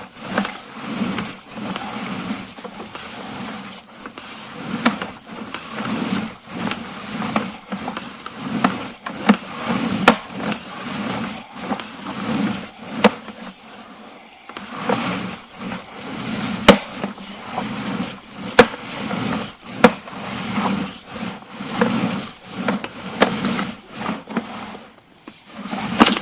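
Sewer inspection camera being fed through a drain line: the push cable rattles and the camera head knocks and scrapes in the pipe, with many irregular sharp clicks over a low rumbling hum.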